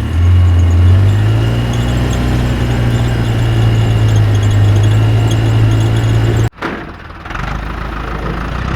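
A vehicle's engine running steadily, its pitch stepping up slightly about a second in. About six and a half seconds in it cuts off abruptly to a quieter, hissier engine sound.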